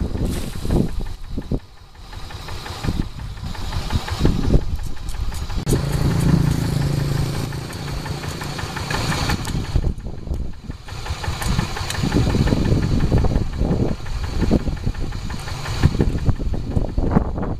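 Kubota RD85 single-cylinder horizontal diesel engine of a two-wheel hand tractor idling with an uneven chugging that dips briefly twice.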